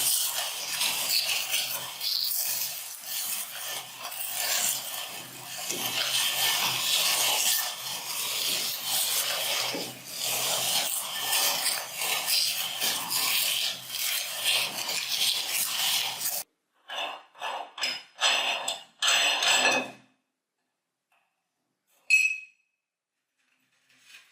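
Rice cake being ground down: a continuous rasping, scraping grind that stops about two-thirds of the way in. Several short bursts of grinding follow, then a single sharp click near the end.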